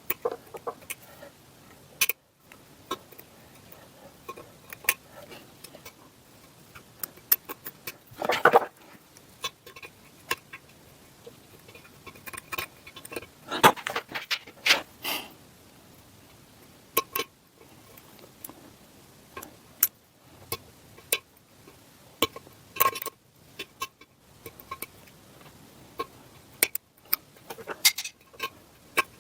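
Irregular small metallic clicks and taps from hand tools working the lettering on a drill press head casting, with a few short scrapes about 8 and 14 seconds in.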